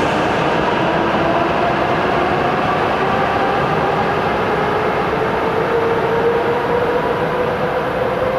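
Hokuriku Shinkansen train pulling away along the platform, a steady rumble and rush with a faint motor whine that rises slowly in pitch as it gathers speed.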